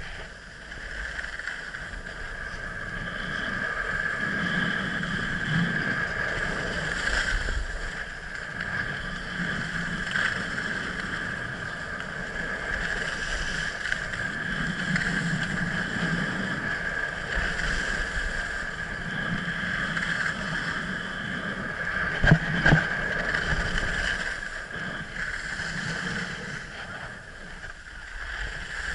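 Skis sliding and carving on packed snow, a steady hiss that swells and fades with each turn, with wind on the microphone. Two sharp knocks come close together about three-quarters of the way through.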